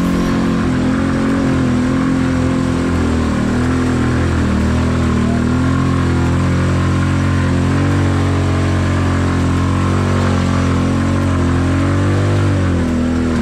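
ATV engine running under throttle while being ridden along a dirt trail, the engine note mostly steady, dipping and picking up again briefly near the end.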